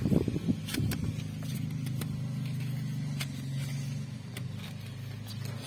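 A motor vehicle engine running steadily at a low pitch, with a few light clicks of cardboard and paper packaging being handled.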